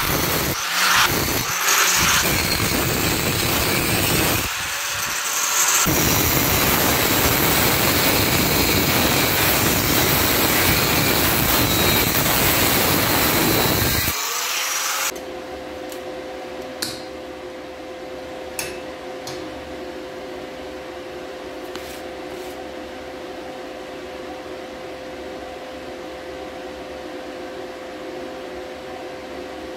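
Angle grinder with a thin cut-off disc cutting through a welded steel plate, loud and steady for about fourteen seconds with a few short pauses, cutting the weld coupon open. It then stops, leaving a quieter steady hum with a couple of faint clicks.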